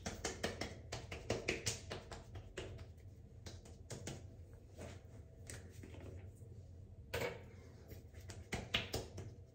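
Faint soft taps and clicks of hands patting and pressing sunscreen into the skin of the face, coming in irregular clusters.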